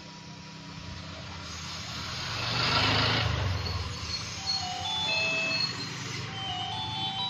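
Hot air rework station blowing with a steady hum, its airy hiss swelling for about two seconds a few seconds in. Then a mobile phone ringtone melody of short stepped notes starts and grows louder near the end.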